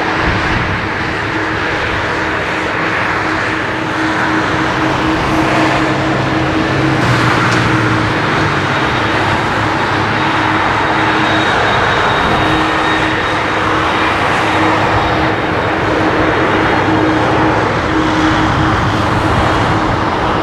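Airbus A310-300's twin General Electric CF6-80C2 turbofan engines running at low taxi thrust: a steady, loud jet rush with a held low tone as the airliner taxis onto the runway.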